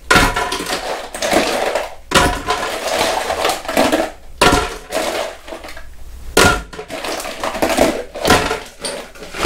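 Ice cubes from two trays tumbling and clattering into a Ninja blender pitcher in a series of bursts, about one every second or so.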